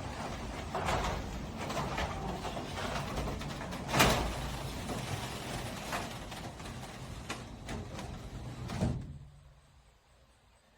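Wall-mounted garage door opener running and moving the door: a steady motor hum with door rattle, a sharp clunk about four seconds in, and the run stopping about nine seconds in.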